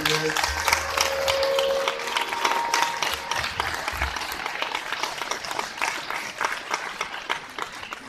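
Audience applauding at the end of a song, the clapping loud at first and steadily thinning and fading away.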